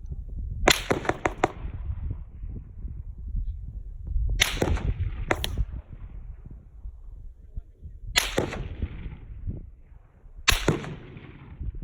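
Gunfire heard from about 100 yards downrange, where the shots are aimed. There is a quick string of sharp cracks about a second in, then single or paired sharp cracks every few seconds, each trailing off in echo.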